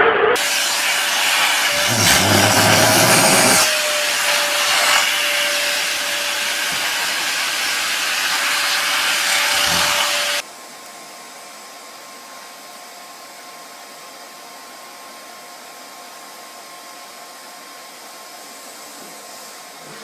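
Vacuum cleaner running loudly with a steady whine. About ten seconds in it cuts abruptly to a much fainter steady hum with a thin high whine.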